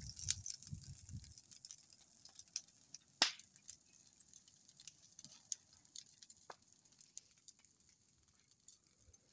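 Cut dry bamboo burning, crackling with scattered sharp pops, the loudest about three seconds in.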